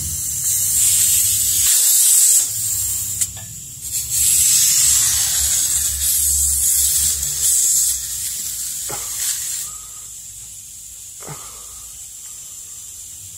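Pressurised air hissing at a small pneumatic dolly tire filled with Slime tire sealant, in long loud stretches broken by short pauses, stopping about ten seconds in. A couple of soft knocks follow as the tire is handled.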